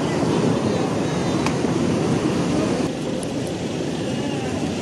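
Steady street ambience: traffic passing, with the chatter of people mixed in. About three seconds in the sound changes abruptly and the high hiss drops away.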